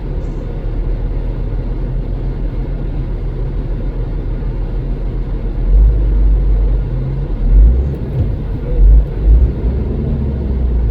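Cabin sound of a 2017 Honda CR-V's 1.5-litre turbo four-cylinder running, a steady low rumble. About halfway through it turns into uneven low surges and thumps. The engine suffers a persistent misfire that the owner blames on the fuel system.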